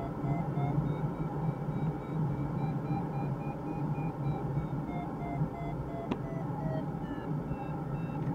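Steady rush of airflow inside a glider cockpit, with an audio variometer beeping rapidly; its pitch climbs over the first few seconds and then falls, following the glider's rate of climb. A single sharp click about six seconds in.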